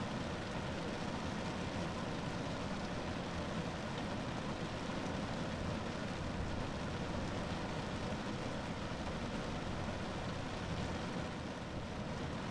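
Rain falling steadily on a car roof, an even wash of noise with no single drops or gusts standing out.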